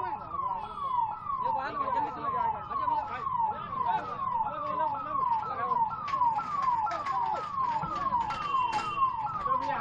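An emergency-vehicle siren, a fast falling wail repeating about two and a half times a second, with scattered knocks and clatter beneath it.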